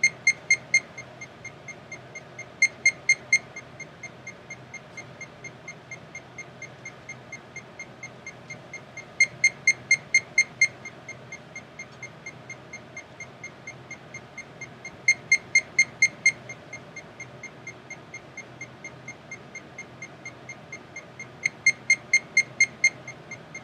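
Computer-generated proximity beeps from a Kinect depth-camera wall-detection program: a steady train of short high beeps, about five a second. The beeps turn loud in five short stretches, each time the camera comes within half a metre of a wall, and drop back soft in between.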